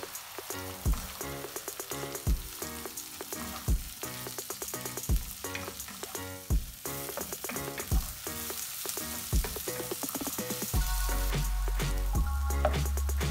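Sliced red onions sizzling in hot oil in a nonstick pan while being stirred with a wooden spatula. Background music with a steady beat plays over it, and a deep bass comes in near the end.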